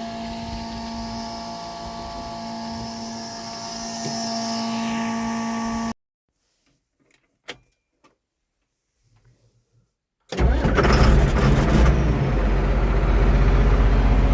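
A steady electric hum with a few fixed tones stops abruptly. After a few seconds of near silence with faint clicks, a tractor engine starts about ten seconds in, catches readily and runs loud and steady.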